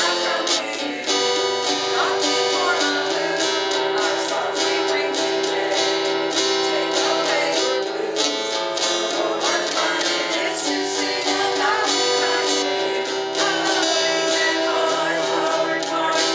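Acoustic guitar strummed in a steady song accompaniment, with a woman's voice singing along.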